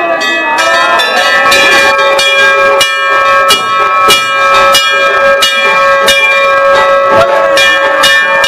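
Several bells struck over and over, several times a second, their tones ringing on and overlapping.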